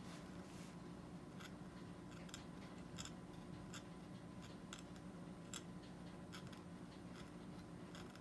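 Faint, irregular ticks and scrapes, about two a second, from the metal blade of a dental hand curette working against the plastic teeth of a dental training model during scaling strokes.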